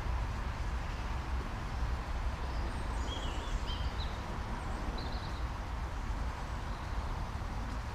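A few short, high bird chirps in the middle, over a steady low outdoor rumble.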